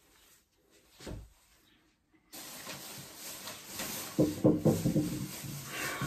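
A plastic bag and tulle fabric being handled: a soft thump about a second in, then a rustle that starts suddenly, with louder, pulsing low sounds in the last two seconds.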